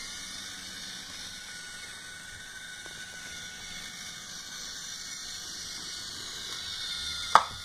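Steady faint hiss with a thin high whine, and one sharp click near the end.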